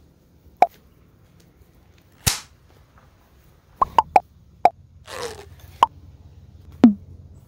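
A series of short pop sound effects, about seven, each a quick pitched blip, the last dropping steeply in pitch, with two brief swishes between them.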